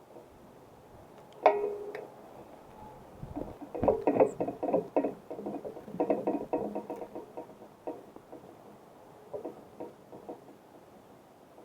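A single knock, then a quick run of light taps and clicks at several a second, and a few more taps near the end: birds landing and pecking seed on the feeder close to the camera.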